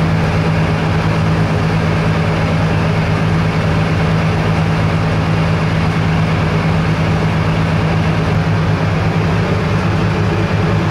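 Fishing boat's engine running steadily, a constant low drone with a deep hum.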